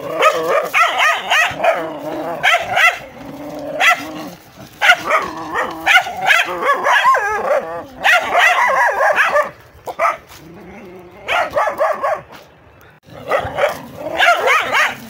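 Dogs barking fiercely in a fight, in rapid overlapping volleys, with a quieter stretch near the end before the barking starts up again.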